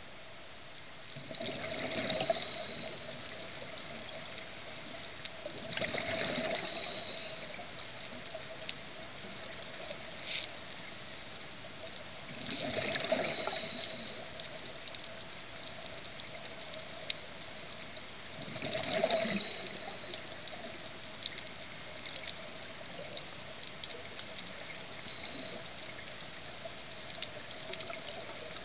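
Underwater sound of a scuba diver breathing through a regulator: bursts of exhaled bubbles, about one every five or six seconds, over a steady faint hum with scattered small clicks.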